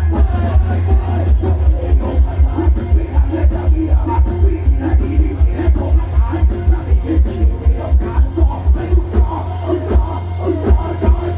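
Loud dance music with a heavy, fast bass beat, played over a rot hae mobile sound-system truck. The beat briefly lets up near the end while the bass holds on.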